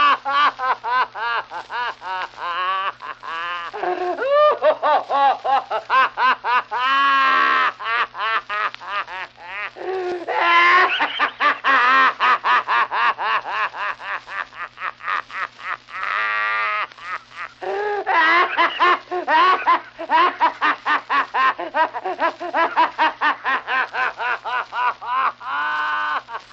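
A man laughing hard and continuously in quick rhythmic "ha-ha" bursts, about four or five a second, broken by a few longer wheezing breaths; an old, narrow-band sound-effects recording.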